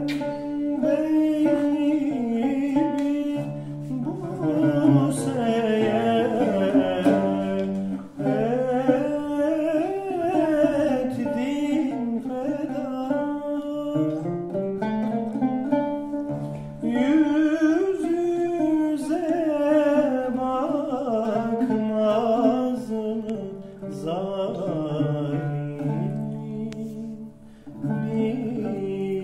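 A man singing a Turkish classical song in makam Kürdilihicazkâr, accompanying himself on the oud. Long ornamented vocal phrases over plucked oud notes, broken by a few short pauses.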